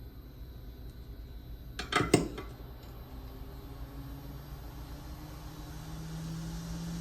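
A quick cluster of sharp metallic clicks and clinks about two seconds in, small tools handled on the micro-soldering bench, over the steady low hum of the bench equipment. Near the end a low steady tone swells along with a rising hiss.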